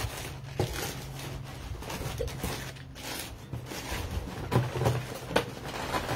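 Scentsy scent-circle packs and their packaging being handled: a few short rustles and knocks, one about half a second in and two more near the end, over a steady low hum.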